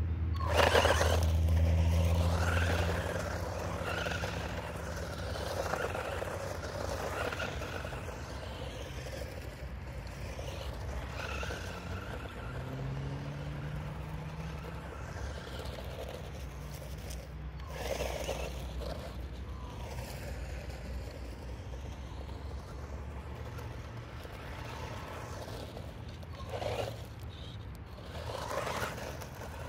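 XINLEHONG 9115 electric RC monster truck driving over dirt and gravel, its motor whining and its tyres crunching and scraping. It is loudest close by in the first few seconds, fainter as it runs off, and gives short louder bursts of gravel noise as it comes back near the end.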